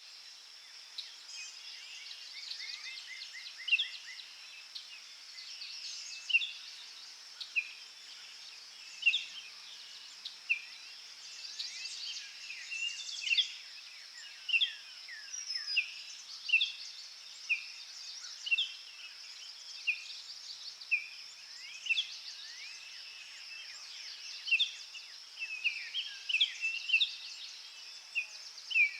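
Small garden songbirds calling: short, quickly falling chirps repeated about once a second, some overlapping, over a steady high-pitched hiss.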